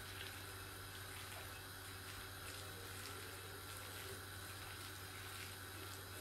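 Faint wet squelching and crackling of a gloved hand squeezing and mixing a batter of thinly sliced salted zucchini, flour, Parmesan and egg in a glass bowl, with irregular small squishes over a steady low hum.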